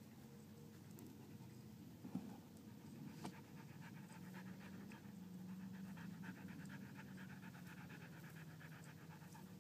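A dog panting quietly and fast, with two brief knocks about two and three seconds in.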